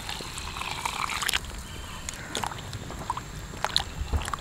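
Hot water poured from a pot into a steel bowl of cauliflower florets, the pour stopping about a second and a half in. The florets are then stirred in the water with a spoon, with a few light knocks.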